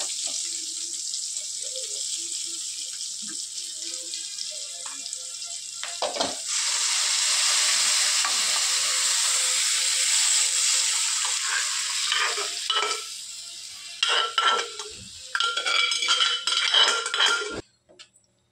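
Onions sizzling in hot oil in an aluminium kadai for a tempering, a steel ladle stirring and scraping. About six seconds in, the sizzle grows louder and stays up for several seconds as sambar is poured in from the cooker. Near the end the ladle clinks and scrapes against the metal pan, then the sound cuts off suddenly.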